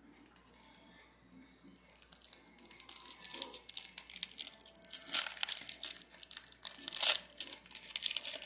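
Foil wrapper of a Pokémon card booster pack crinkling and tearing as it is opened by hand. The crackling builds from about two seconds in, with two loudest flare-ups near the middle and near the end, then stops.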